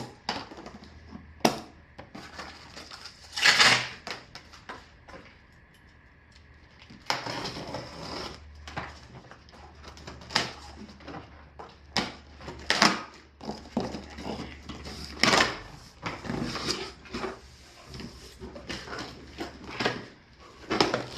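Cardboard box being opened and handled by hand: an irregular run of knocks, scrapes and rustling, tearing bursts from the cardboard and packing.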